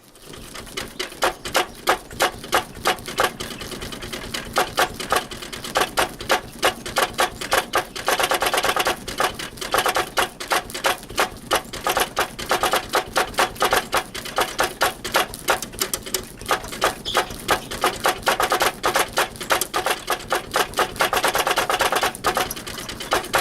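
Electrostatic static-lift test rig making rapid, irregular clicking, several clicks a second in uneven runs over a steady hiss, that sounds like Morse code.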